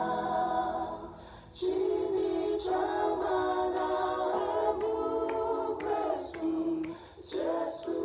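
A cappella vocal group singing sustained close-harmony chords, played back from a laptop, with two brief breaths between phrases, about a second and a half in and near the end.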